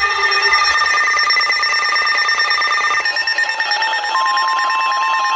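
Electronic background music, then about four seconds in a steady single-pitched alert tone starts and holds: an Emergency Alert System attention signal.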